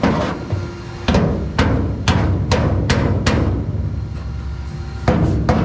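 A series of sharp metal taps on a freshly welded console mount bracket, about two a second with a pause in the middle, each ringing briefly. The bracket is being knocked to check that the welds are solid.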